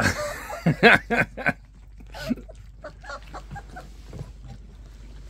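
Three-to-four-week-old puppies yapping several times in quick succession, then softer, high-pitched short whimpers and squeaks.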